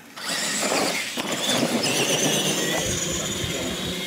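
Radio-controlled monster trucks launching off the start line and racing on a concrete floor. A sudden loud burst about a quarter second in gives way to a steady mix of high motor and gear whine and tyre noise.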